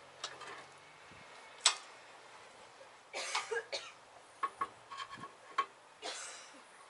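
Scattered metal clinks and knocks as a steel control arm and a rubber bushing are worked against a shop press and vise, a few of the clicks with a short ring, along with a couple of strained, breathy exhales from the effort.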